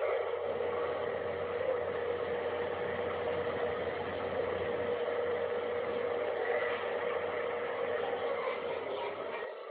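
A steady droning hum held at one pitch over a background hiss, the kind of unexplained sky sound heard in these viral recordings. It changes abruptly shortly before the end.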